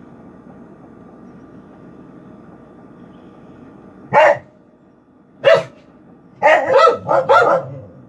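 A dog barking loudly: one bark about four seconds in, another a second later, then a quick run of about four barks near the end. The barks come over a steady low hum.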